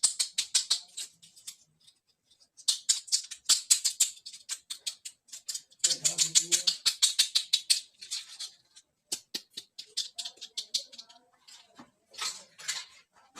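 Rapid runs of small, sharp clicks and taps from hands handling small toy dollhouse pieces, pausing briefly about two seconds in and again near the end.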